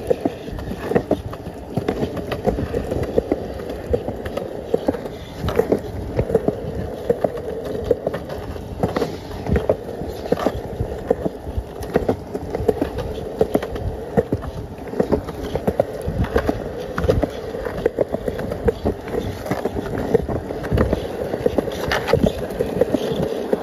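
Skateboard wheels rolling over a concrete sidewalk in a steady rumble, with frequent irregular clicks and knocks from the boards crossing the pavement.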